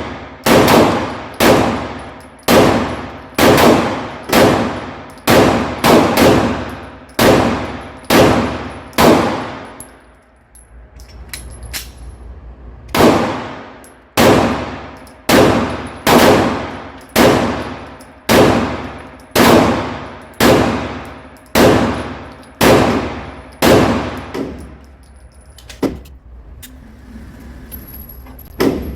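Glock 17 9mm pistol fired in two steady strings, roughly one or two shots a second, each shot followed by a long ringing tail. The first string stops about ten seconds in, and the second starts about three seconds later.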